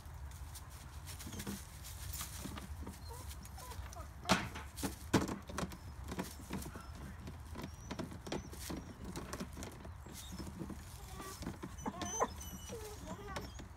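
Two dogs pawing and nosing at a plastic garden hose reel, their claws scrabbling and knocking on the plastic housing as they try to get at a chipmunk hiding inside. Two sharper knocks come about four and five seconds in.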